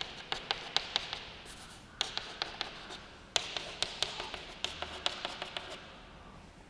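Chalk tapping and scratching on a blackboard as chemical formulas are written, in short runs of quick taps with brief pauses between; it dies away for the last second or so.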